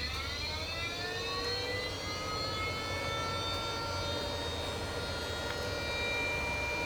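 Smartweld Jet rail-preheating device starting up: a whine rising in pitch over the first two seconds or so, then holding steady, over a low hum.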